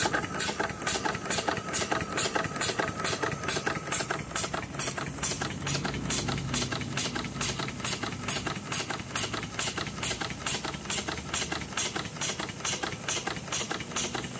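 Simpson Strickland tandem quadruple-expansion marine steam engine running at a steady speed, its exhaust and valve gear beating in a quick, even rhythm.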